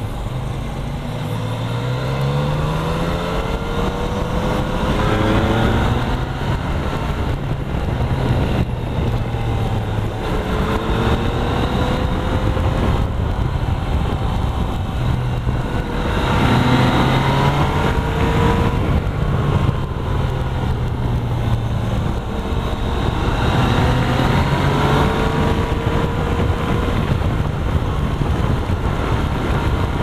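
Motorcycle engine heard from on board, its pitch rising several times as the rider accelerates out of the bends and then dropping back, over a steady rush of wind and road noise.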